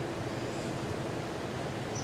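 Outdoor nature ambience: a steady, even rushing noise with no distinct events.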